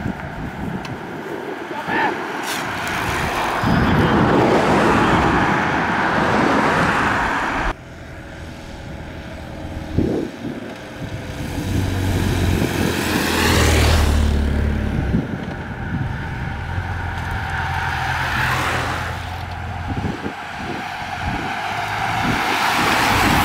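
Race-convoy motor vehicles driving past one after another, cars and a race motorcycle, with the motorcycle's engine a steady low hum in the middle stretch, over wind noise on the microphone. The sound cuts off abruptly about eight seconds in.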